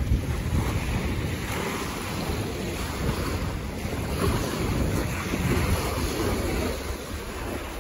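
Small waves washing up and breaking on a sandy shore, with wind rumbling on the microphone.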